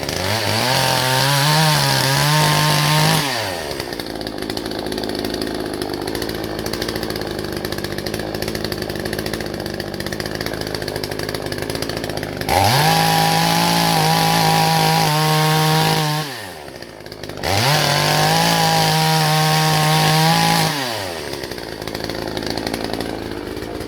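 Hyundai HYC6200X 62cc two-stroke petrol chainsaw revved at full throttle, dropping to idle after a few seconds, then revved hard twice more with a brief drop between, before settling back to idle near the end.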